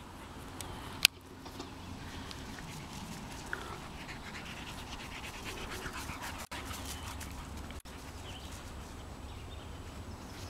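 A Dalmatian panting as it plays, with a single sharp click about a second in.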